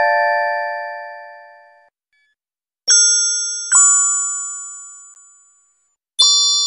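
Bell-like "ding" chime sound effects: four struck, ringing tones, one at the start, two close together about three seconds in and a higher one near the end, each fading out over about two seconds.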